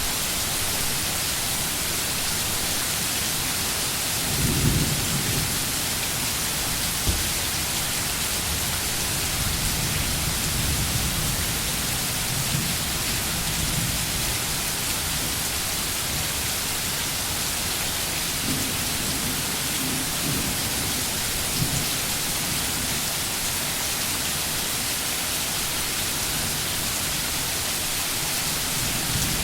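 Steady rain falling, a continuous dense hiss of drops, with a few low rumbles underneath, the first about four seconds in and more around the middle.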